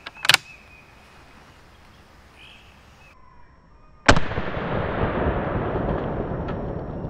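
A sharp click from the handled action of a Springfield trapdoor rifle near the start. About four seconds in, a single loud bang as a bucket target is hit, trailing off in a long rumble that fades over about three seconds.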